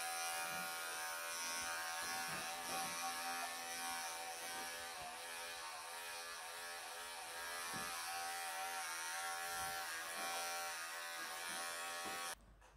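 Wahl professional electric pet clippers running with a steady buzz while clipping a Persian cat's coat. They are switched off suddenly near the end.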